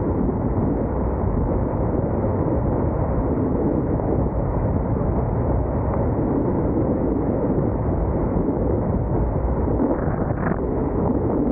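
Steady road noise of a car driving on a wet highway: tyre hiss on the wet pavement mixed with wind noise on the microphone, with no clear change throughout.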